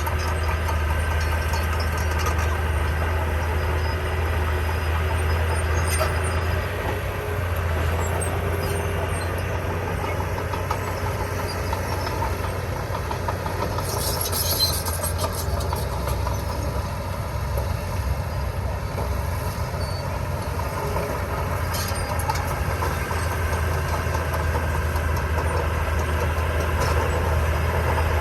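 Diesel engine of heavy construction machinery running steadily with a low drone, with scattered faint clicks and a brief higher rattle about halfway through.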